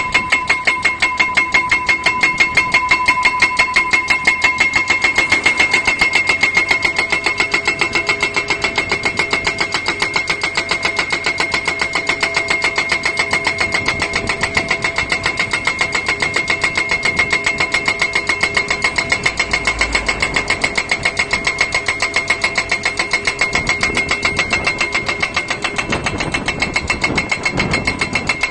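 Guardrail pile driver hammering a steel post with rapid, evenly spaced blows over its running engine, with a steady metallic ringing tone.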